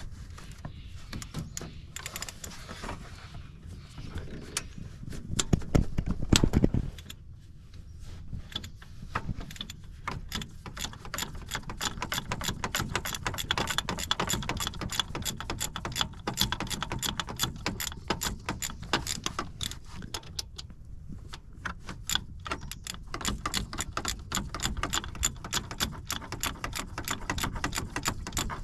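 Socket ratchet clicking in long, fast runs as a starter mounting bolt is worked loose, with a louder low rumble of handling a few seconds in.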